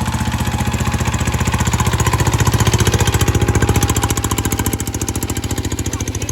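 G1000 hand tractor's engine running with a fast, even beat. It grows louder through the middle and eases off about five seconds in.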